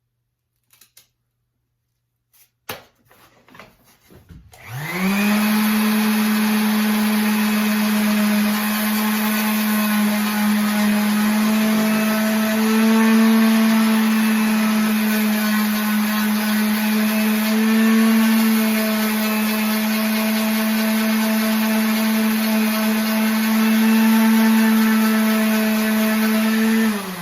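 Electric power tool motor spinning up after a few clicks, running steadily with slight dips and rises in pitch as it is worked, then winding down right at the end.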